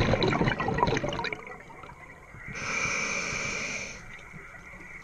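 Scuba diver breathing through a regulator underwater: a burst of exhaled bubbles rumbling and crackling in the first second, then a steady hiss of inhalation through the regulator a little past the middle.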